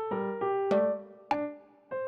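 Background music: a gentle piano or electric-piano melody, single notes struck and left to ring.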